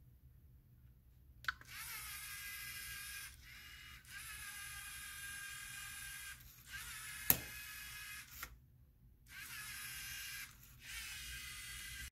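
LEGO Mindstorms EV3 robot's motors whining as it drives a programmed run, in several stretches of one to two seconds separated by brief pauses, with one sharp knock about seven seconds in.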